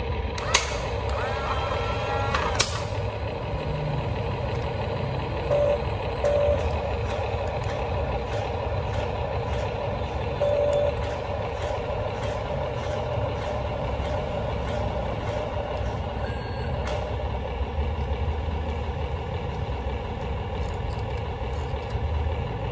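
A 1:20 RC flatbed truck's sound module plays a simulated truck engine running steadily. An air-brake-style hiss comes in the first few seconds, and a few short beeps follow later.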